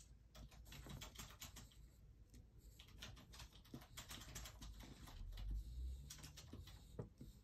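Faint scratching of a black colored pencil hatching on paper: quick runs of short strokes, with a brief low rumble about five and a half seconds in.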